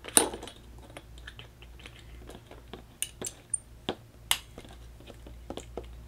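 Vice grips (locking pliers) being adjusted and clamped onto a length of EMT steel conduit pipe: metal clicks and clanks. There is a sharp ringing click just after the start, then scattered light clicks, with louder ones about three and four seconds in.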